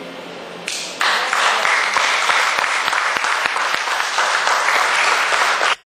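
Audience applauding, starting about a second in and cut off abruptly near the end.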